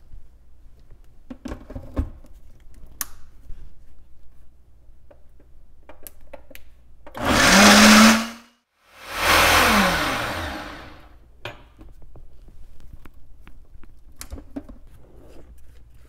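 Countertop blender puréeing soaked cashews with water into a smooth cheese-style sauce, running in two loud bursts, the second winding down with a falling motor pitch. Light clicks and knocks of handling come before and after.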